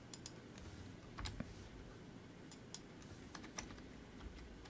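Faint computer keyboard keystrokes: a dozen or so separate key presses at an uneven pace, with short pauses between them, as code is reformatted onto new lines.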